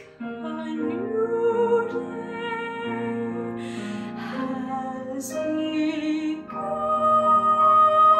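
Girl's solo voice singing a slow musical-theatre ballad in a legato, classical style, with a louder held note near the end.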